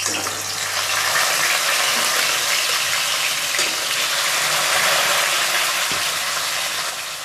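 Rohu fish steaks sizzling as they shallow-fry in hot mustard oil in a kadhai, a steady hiss that eases off near the end.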